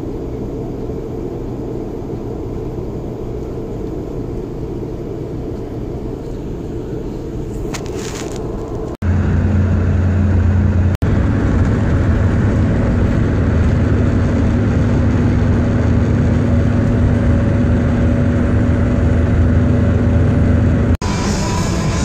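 Steady engine and road noise heard from inside a tour bus on the move. About nine seconds in it turns louder, with a steady low hum. It breaks off for an instant then, again a couple of seconds later, and near the end.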